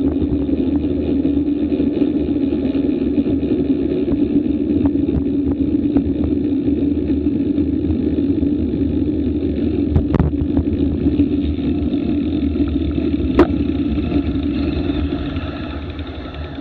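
Muffled, steady rumble of road and wind noise picked up through a bicycle's handlebar-mounted action camera as the road bike rolls along and slows, fading near the end as it comes to a stop. A couple of sharp clicks sound partway through.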